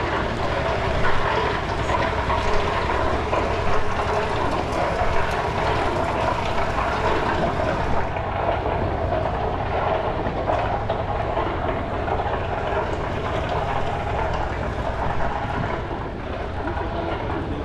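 Hand-cranked, water-cooled stationary engine running steadily, with a dense, continuous clatter from it and the machinery it drives.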